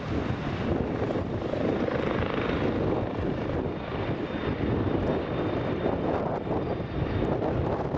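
A helicopter's turbine and rotor running with a thin steady whine as it hovers low. A few seconds in this gives way to the steady rushing jet-engine noise of a Boeing 737 on final approach.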